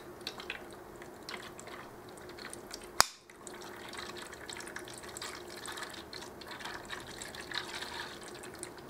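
Water pouring from a plastic bottle into the Click & Grow Smart Herb Garden's water reservoir, splashing unevenly as the tank fills, with one sharp click about three seconds in.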